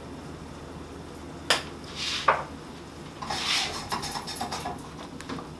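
A utensil clinking and scraping against a cooking pan while seasoning is stirred in: two sharp clinks about a second and a half apart, then a second or so of scraping with small taps.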